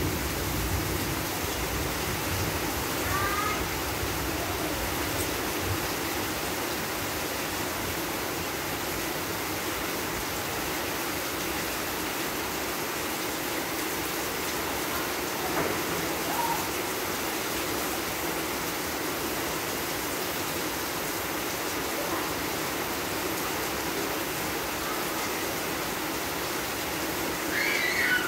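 Steady heavy rain falling, an even rushing hiss. A few brief faint chirps break through it, the clearest near the end.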